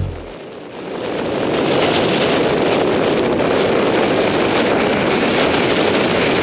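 Steady rushing of wind on the microphone and skis on snow during a fast ski run, swelling in over the first second or two and then holding.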